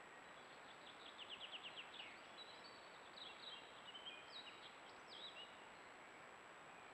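A songbird singing faintly: a rapid run of about eight repeated notes, followed by a few varied, separate phrases, over a steady hiss.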